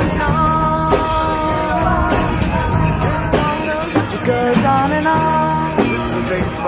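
A rock-style music track with a steady beat and a sustained melodic line that bends between notes.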